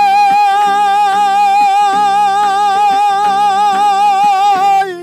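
A man sings one long held note with vibrato in an Uzbek song, cutting off near the end, over a plucked long-necked lute, a nylon-string guitar and the steady strokes of a doira frame drum.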